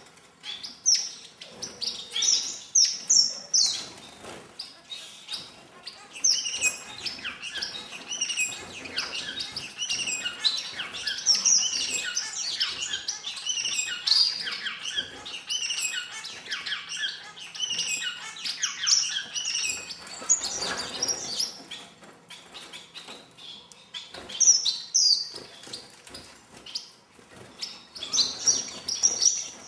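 Star finches chirping in an aviary: a busy run of many short, high calls from several birds, thinning out for a few seconds about two-thirds of the way through before picking up again.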